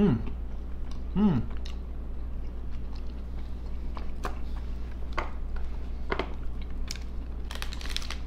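Two people chewing pieces of a milk chocolate bar topped with dried ginger, with wet mouth clicks and smacks about once a second in the second half. There are two short falling hums near the start.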